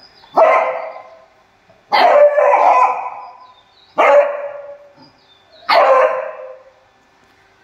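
A beagle barking four times, each bark echoing briefly; the second bark, about two seconds in, is longer and more drawn out.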